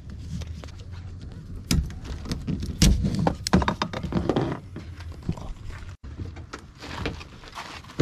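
Nylon tie-down strap being pulled loose from a plastic kayak on a car roof rack: a run of knocks, rattles and scrapes of the webbing and buckle against the hull, loudest about three seconds in.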